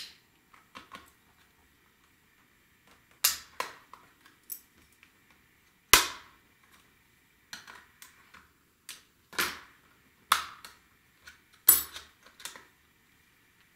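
Irregular sharp clicks and snaps of a Digital Compact Cassette's metal slider and plastic shell being handled and pried, about a dozen in all, the loudest about six seconds in.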